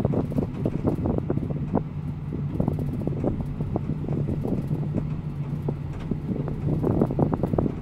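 A car driving, heard from inside the cabin: a steady low engine and road hum, with frequent small irregular clicks and rattles over it.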